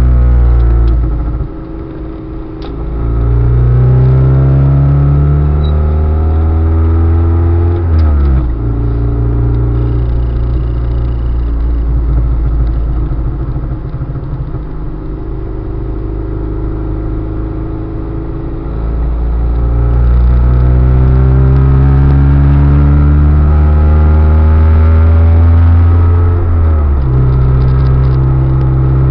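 Car engine heard while driving, its revs rising and falling: the pitch climbs, then drops sharply about eight seconds in, stays lower and rougher for about ten seconds, climbs again and drops once more near the end, as at gear changes.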